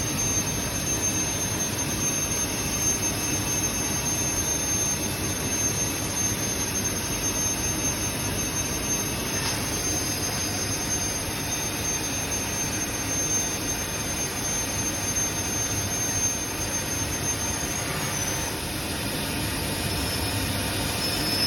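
Steady industrial machinery noise from a sealed quench furnace line, with a continuous high-pitched whine that drops away about 18 seconds in and a fainter whine near the end.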